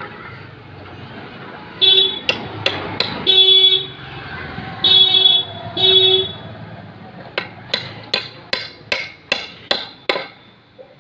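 A hammer drives a steel nail into a wooden window-frame member with about nine quick, sharp blows in the second half. Earlier there are four short toots of a vehicle horn.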